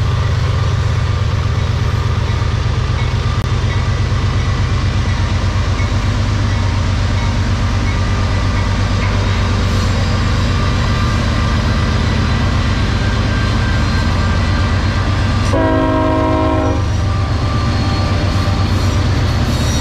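CSX freight train's diesel locomotives passing close by: a loud, steady rumble of the engines and wheels on the rails, with a fine rhythmic pulse. About fifteen seconds in, a train horn sounds one short blast of just over a second.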